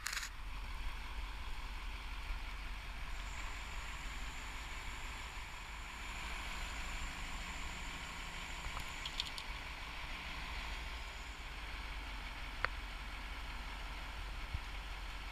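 Truck crane's engine running steadily in the background while the boom works overhead, with a few light clicks.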